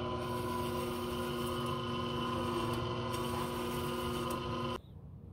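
Vevor 10-inch electric meat slicer running with a steady motor whine and hum while slabs of hot-smoked bacon are pushed through the spinning blade. The sound stops abruptly near the end.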